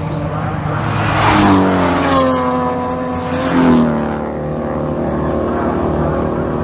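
BMW E30 race car engine running hard at racing speed. Its pitch drops sharply twice, about a second and a half and nearly four seconds in, each drop coming with a brief louder swell.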